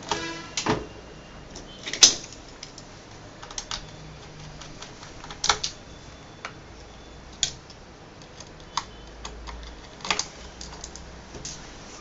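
Scattered sharp clicks and taps of a Phillips screwdriver and small screws against a laptop's metal hard-drive caddy and plastic case as the caddy screws are taken out. The loudest click comes about two seconds in.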